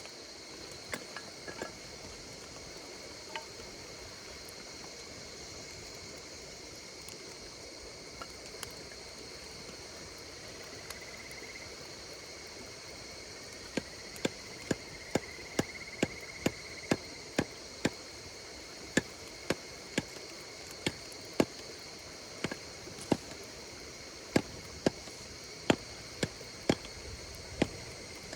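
Insects singing steadily in high-pitched trills over the low hiss of a burning campfire. About halfway through, the fire starts crackling with sharp pops, roughly two a second.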